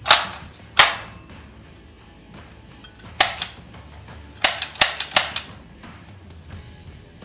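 CO2-powered 4.5 mm (.177) AR-15-style air rifle firing six sharp shots: two about a second apart at the start, one a little past three seconds, then a quick run of three around five seconds.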